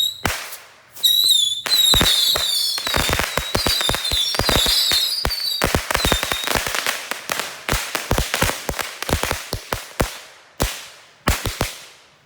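A volley of bottle rockets going off: shrill, wavering whistles over rapid sharp pops and bangs. The whistles fade out a little past halfway, leaving scattered bangs that stop shortly before the end.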